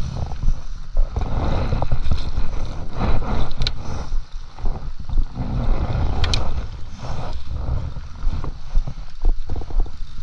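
Wind buffeting the camera microphone in a steady low rumble, with a few sharp clicks and a landing net splashing in the river about six seconds in.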